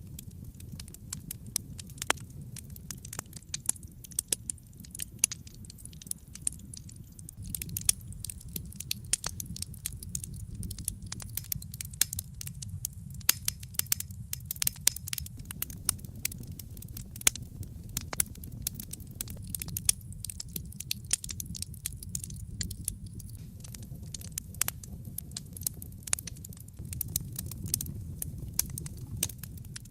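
Wood fire crackling in a fireplace: many irregular sharp pops and snaps, several a second, over a steady low rumble of the burning flames.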